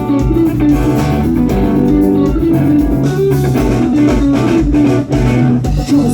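Live band music: an instrumental passage led by electric guitar over bass guitar and a steady drum beat.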